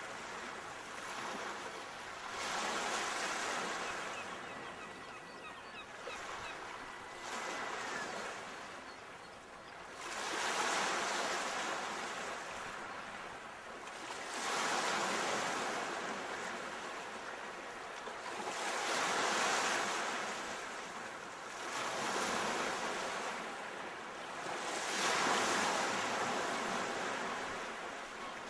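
Sea waves breaking and washing on the shore, surging in a slow, even rhythm about every four to six seconds.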